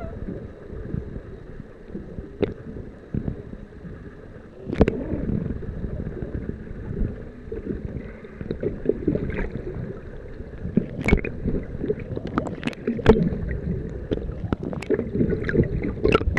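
Underwater sound picked up by a camera in the water: a dense low rumble of moving water with scattered sharp clicks and crackles, which come more often in the second half.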